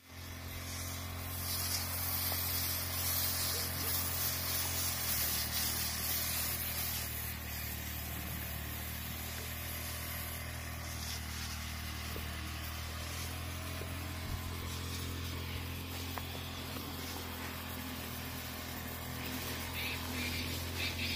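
The small engine of a hose-fed power sprayer running steadily, its note shifting slightly about five seconds in, with the hiss of the spray gun misting fungicide onto apple trees.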